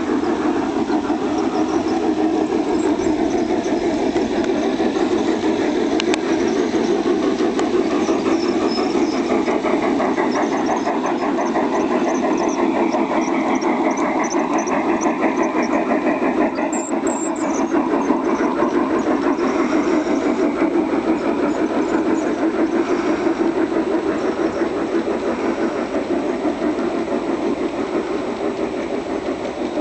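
G-gauge model train running along garden-railway track: a steady rumble of the locomotive's drive and the wheels rolling on the rails, continuous as the cars pass.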